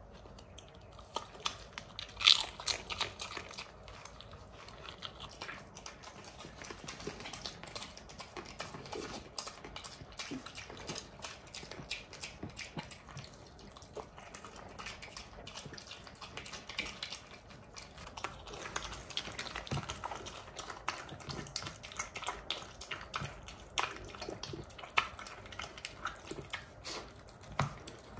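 A pet mini pig eating, with quick wet chewing and smacking clicks throughout and a louder burst about two seconds in.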